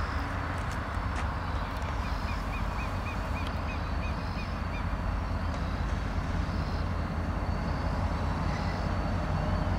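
Steady low rumble of a diesel locomotive approaching slowly. About two seconds in comes a run of about ten short, high chirps.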